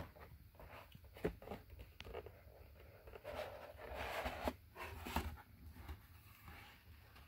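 Handling noise from a cardboard model-kit box being held and turned in the hand: a few light taps and clicks, with a rustling scrape of fingers on the cardboard about halfway through.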